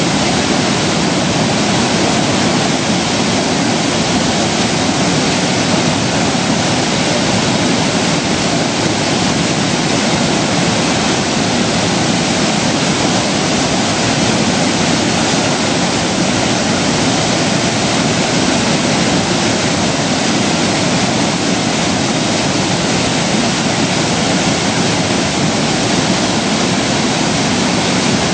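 Waterfall in high flow pouring over a sandstone ledge into a plunge pool: a loud, steady rush of falling water.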